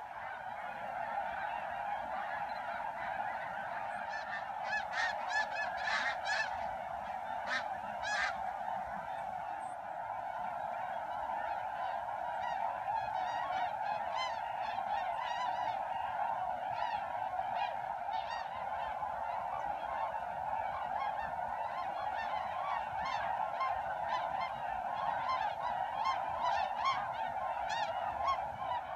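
A large flock of waterfowl calling overhead in a dense, continuous chorus, with a few louder, nearer calls standing out about four to eight seconds in.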